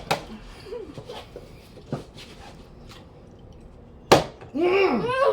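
Sharp knocks of a flipped plastic water bottle landing on a table, three of them, the loudest about four seconds in. A high, wavering voice-like cry follows near the end.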